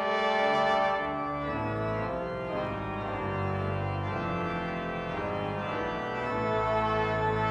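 Organ playing sustained full chords over low bass notes that change every second or so, swelling slightly near the end. This is the organ part of a concluding piece scored for choir, organ, brass and timpani.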